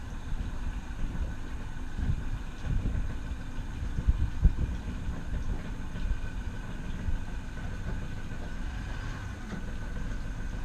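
Glass-bottom boat's engine running steadily as a low rumble with a faint steady whine, heard from inside the hull, with a couple of low knocks about four seconds in.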